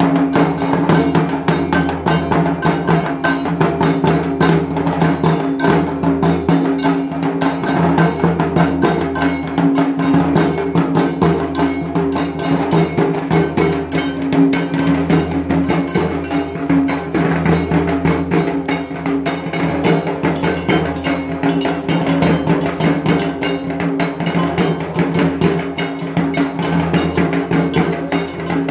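Dhak, the large Bengali barrel drums, beaten with sticks in a fast, unbroken rhythm.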